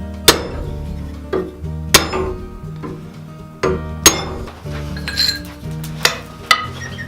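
Background music with a steady bass line, over which metal rings under hammer blows: about five sharp clinking strikes spaced a couple of seconds apart, two of them close together near the end.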